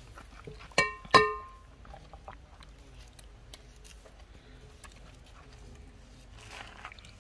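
Two metallic clinks about half a second apart, each ringing briefly: metal cookware being struck.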